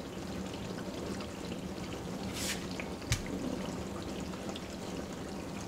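Steady background hiss with a low hum, a brief soft rustle about two and a half seconds in and a single light click just after.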